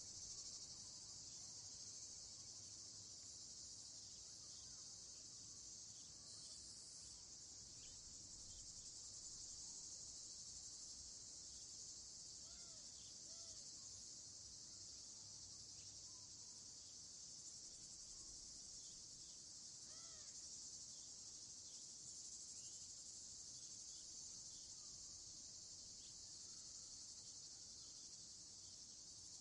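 Steady evening chorus of crickets, a dense high-pitched trilling that never lets up. A few faint, short calls from some other animal come through about halfway in and again about two-thirds of the way through.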